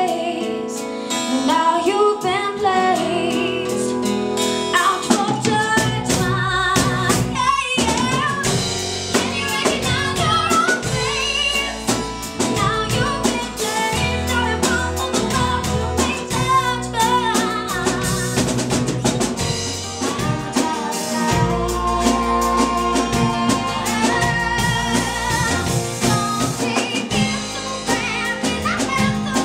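A live band playing a song, led by a woman singing with acoustic guitar; a drum kit and bass come in about five seconds in.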